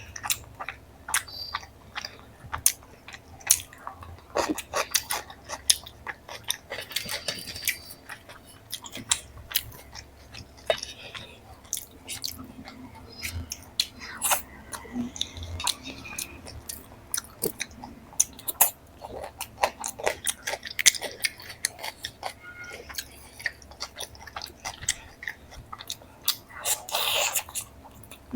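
Close-miked eating sounds: a person biting and chewing paneer curry with flatbread, making many irregular small clicks and smacks, with a louder crunchy spell near the end.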